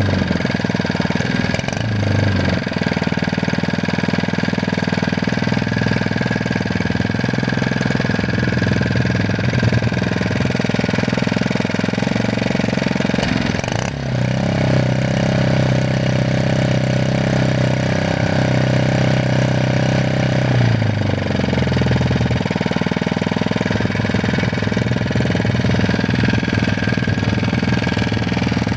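Harbor Freight Predator 79cc (3 HP) single-cylinder OHV engine running on its first run, its note shifting a few times, with a stronger, steadier hum from about halfway through for several seconds.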